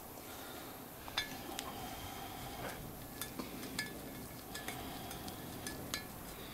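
Steel hand tools in a tool tray clinking together as they are rummaged through: about a dozen light, ringing metal clinks at irregular intervals.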